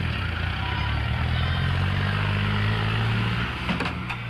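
Tractor's diesel engine running close by, its pitch wavering as it is revved. The engine sound cuts off about four seconds in.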